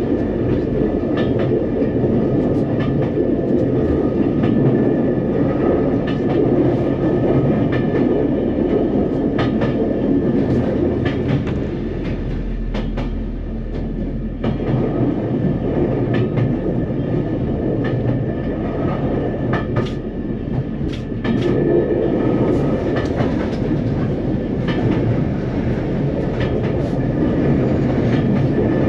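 NER Autocar No. 3170 railcar running along the line: a steady rumble of engine and wheels with repeated clicks over the rail joints. It goes quieter for a few seconds about twelve seconds in and again briefly around twenty seconds, then picks up again.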